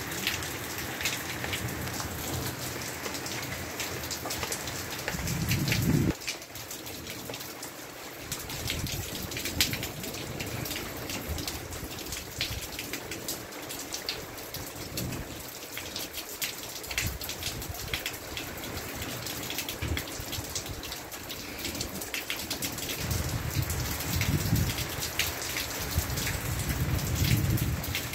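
Steady rain falling, with many sharp drops striking close by. Low rumbles of thunder swell up about five seconds in and again over the last five seconds.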